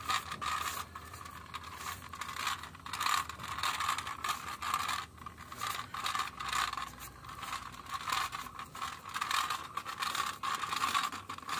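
Plastic pull-along toy car dragged by its string across rough concrete, its plastic wheels and works giving a steady clicking, ratcheting rattle as it rolls.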